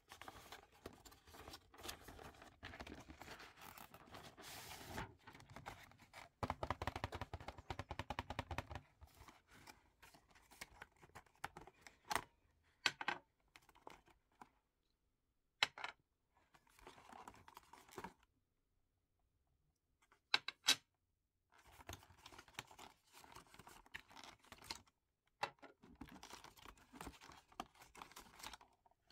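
Paperboard gift box being handled and opened: cardboard flaps and insert sliding and scraping, with a few sharp clicks as small cosmetic bottles are pulled out and set down, two of them close together about two-thirds of the way through.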